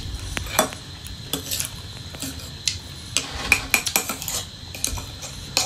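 Metal spoon clinking and scraping on a ceramic plate in a run of light, irregular clinks, busiest about halfway through.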